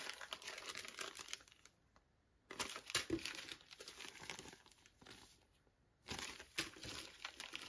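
Small plastic zip-lock bags of diamond-painting drills crinkling faintly as they are handled, in three short spells with brief pauses between.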